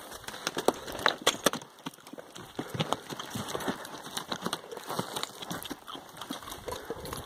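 Pack donkeys' hooves and footsteps knocking and scuffing on a loose stony path: an irregular clatter of sharp clicks.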